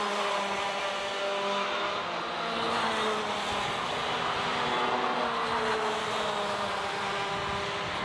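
Several two-stroke racing kart engines running together at high revs. Their overlapping notes rise and fall as the pack goes through the corner.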